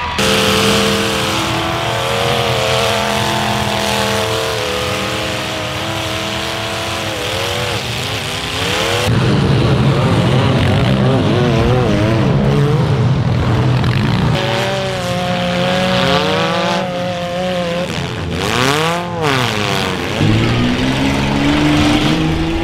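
Demolition derby cars' engines revving hard, their pitch rising and falling, with the sound changing abruptly a few times. Brief sharp noisy bursts come near the end.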